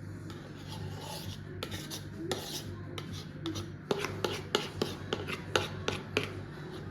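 Rubbing and scraping handling noises with a series of sharp taps, coming faster and louder about four seconds in, typical of kitchen items being handled.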